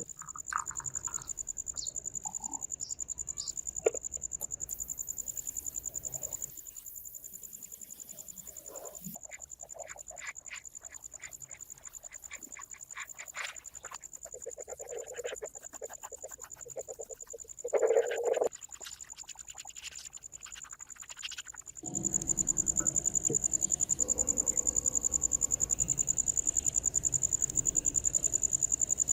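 Steady high-pitched insect chirping, like crickets, with scattered light clicks and knocks and a louder clatter about 18 seconds in.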